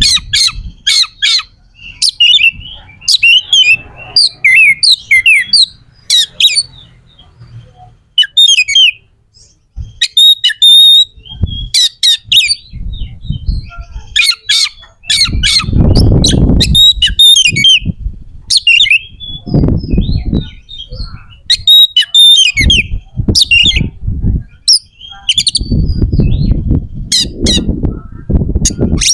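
Oriental magpie-robin (kacer) singing in fast, harsh runs of sharp clicking notes and scratchy whistled phrases, the aggressive, agitated song used to provoke rival males. A low rumbling noise comes and goes under it.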